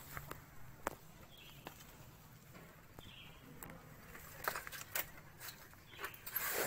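Hands pulling weeds from the soil of a potted plant: soft rustling of leaves and stems with scattered small clicks and snaps, and a louder rustle near the end.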